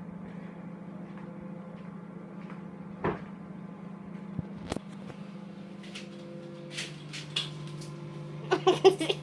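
Microwave oven running with a steady hum that drops slightly in pitch about two-thirds of the way through. A few sharp clicks sound over it, and there is a cluster of louder knocks near the end.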